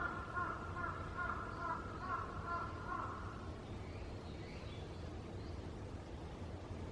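A bird calling: a run of quickly repeated calls for about the first three and a half seconds, then stopping, with faint high chirps from other birds behind.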